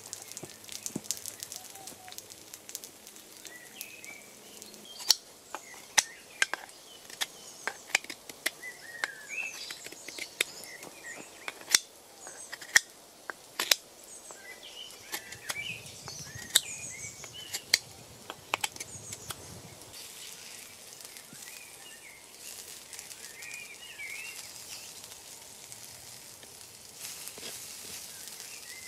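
Irregular sharp clicks and scrapes of two knife blades worked against each other, dozens of them, stopping a little past the middle. Small birds chirp throughout.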